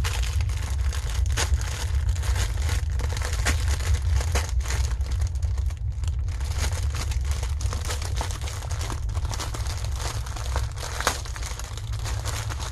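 Plastic packaging of diamond painting drills crinkling and rustling as it is handled, with many small sharp crackles, over a steady low hum.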